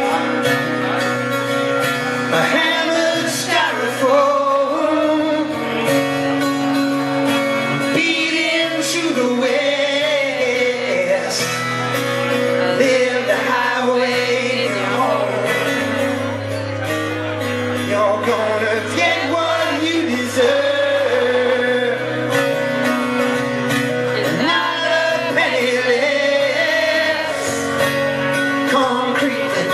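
A man singing live, accompanying himself on a strummed twelve-string acoustic guitar.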